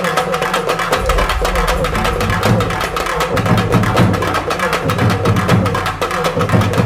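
Music with a fast, steady percussion beat and a heavy bass line.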